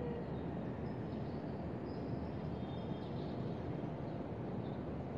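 Steady low outdoor city rumble, like distant traffic, with a few faint high chirps about a second and three seconds in.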